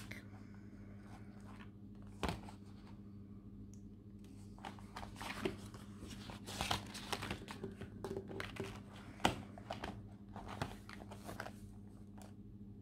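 Pages of a disc-bound planner being turned by hand: paper and plastic crinkling and rustling, with scattered clicks and a sharp tap about nine seconds in, over a faint steady hum.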